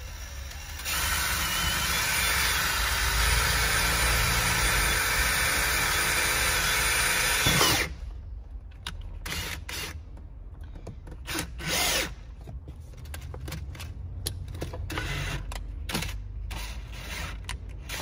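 Cordless brushless drill running steadily for about seven seconds as its bit bores through a plastic interior trim panel, then stopping suddenly. A few short bursts of the drill follow.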